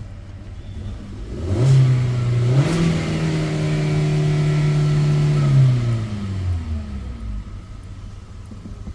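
Hyundai Verna's CNG-converted petrol engine revved up about a second and a half in, held at high revs for about four seconds, then falling back to idle. It is being run up after new spark plugs were fitted to cure a cylinder-2 misfire.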